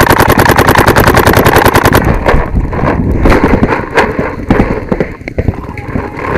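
Paintball marker firing in a rapid, even stream of about a dozen shots a second, heard from a camera mounted on the marker's barrel; the stream stops about two seconds in. After that come scattered, quieter single shots.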